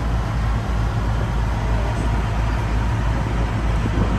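A river tour boat's engine running steadily with a low drone, under a constant rushing noise.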